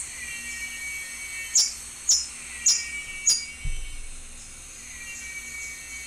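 Recorded Blue-chested Hummingbird calls: four sharp, high chips about half a second apart, over a forest background with fainter, lower repeated notes. A soft low thump comes just after the last chip.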